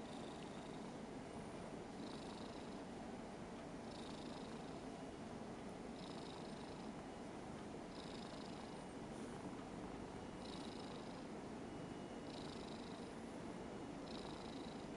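A Ragdoll cat purring steadily and softly while being stroked on the head, a low continuous rumble with a faint higher rasp recurring about every two seconds.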